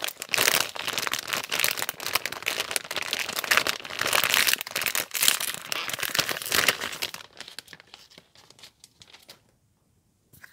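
Metallic anti-static shielding bag crinkling and rustling as it is handled and unwrapped. The crinkling is dense for about seven seconds, then dies down to a few faint rustles.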